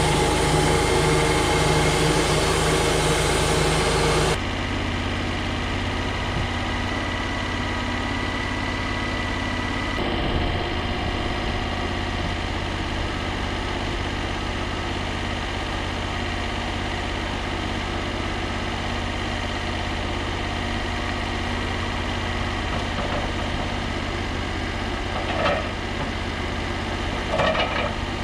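Sawmill engine running, loud and hissy for about the first four seconds, then dropping to a steady idle. Two brief knocks near the end.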